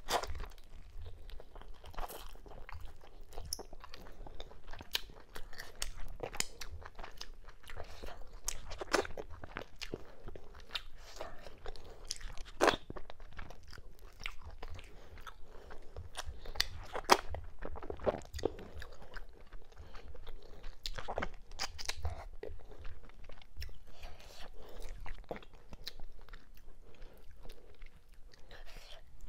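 Close-miked chewing and biting of cow skin, mackerel and fufu in okra-ogbono soup, eaten by hand, with many irregular sharp crunchy clicks and mouth sounds.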